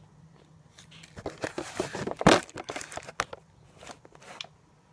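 Handling noise as a handheld camera is set down and adjusted on a desk. It is rustling with scattered light clicks and knocks, busiest between about one and three seconds in, with the loudest knock a little past two seconds.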